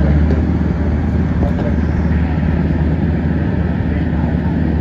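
Small garden tractor engines running as the tractors are driven past, a steady low drone.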